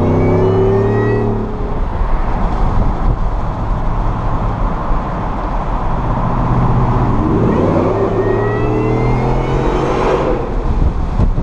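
2016 Ford F-150 Shelby's supercharged 5.0-litre V8 accelerating, with the Whipple supercharger whining and rising in pitch. The first pull eases off about a second and a half in, steady running follows, and a second pull climbs from about seven seconds until the throttle lifts near ten seconds.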